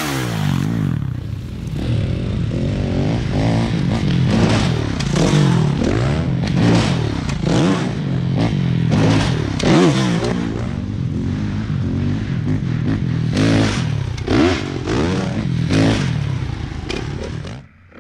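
Motocross dirt bike engine revving up and down over and over, its pitch rising and falling as the bike is ridden around the track, then cutting off abruptly near the end.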